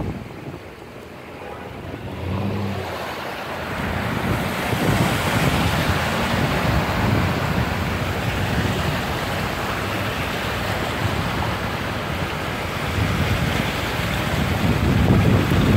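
Cars driving through floodwater, their tyres pushing and splashing through it with a steady rushing, which builds up over the first few seconds.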